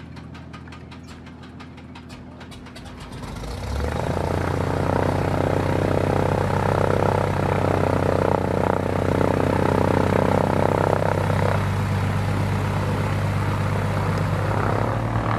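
Cessna 182P Skylane's six-cylinder Continental O-470 piston engine being started: a rapid, regular ticking as the starter cranks it, then the engine catches about three and a half seconds in and runs steadily at low power.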